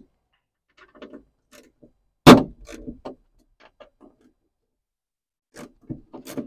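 Small ratchet screwdriver clicking in short runs while tight door lock actuator screws are cracked loose, with one loud sharp knock about two seconds in.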